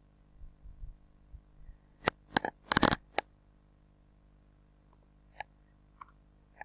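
Computer mouse clicks: a quick run of sharp clicks about two to three seconds in, then a few fainter single clicks, with some soft low bumps near the start.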